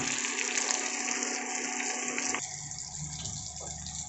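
Fish roe and liver frying in oil in a steel pan, a steady sizzle that cuts off abruptly about two and a half seconds in, leaving quieter room noise.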